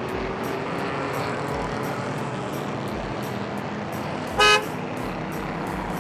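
Cartoon car sound effect: the engine running steadily, with one short horn toot about four and a half seconds in, the loudest sound.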